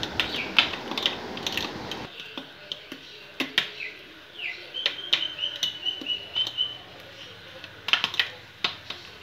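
A fork whisking beaten egg mixture in a glass bowl, clicking irregularly against the glass.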